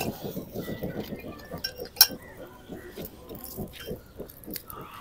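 Clinking of a drinking glass as lumps of hot charcoal are put into it: a sharp clink at the start and another about two seconds in, with lighter knocks between.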